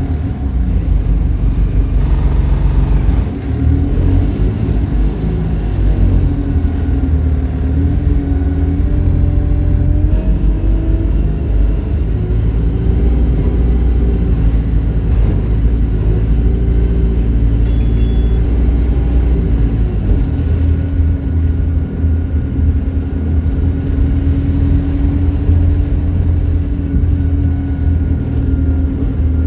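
Single-deck bus engine and automatic gearbox heard from a seat inside the cabin, running under way with a steady low rumble, its pitch rising and falling as the bus accelerates and shifts gear. A brief high beep sounds once about two thirds of the way through.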